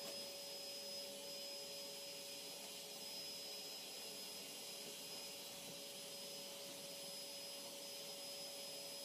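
Vacuum cleaner running steadily: an even hiss with a faint steady whine.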